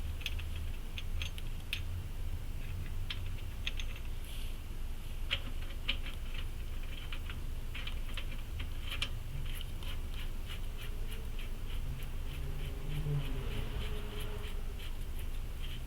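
Irregular light clicks and scrapes of small metal parts being handled during wheel hub reassembly, over a steady low hum.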